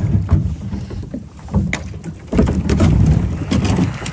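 A kayak breaking through thin lake ice: a low grinding crunch with sharp cracks and snaps of the ice, growing denser and louder about two seconds in.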